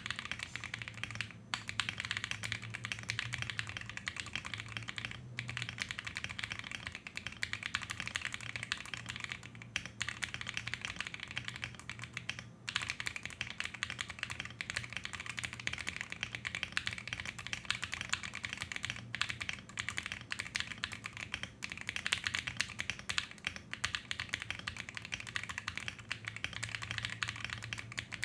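QK65 mechanical keyboard with stock KTT Baby series Pink switches on a UHMWPE plate, plate foam and silicone bottom, being typed on quickly and continuously. A dense stream of keystroke clacks, broken by a few brief pauses.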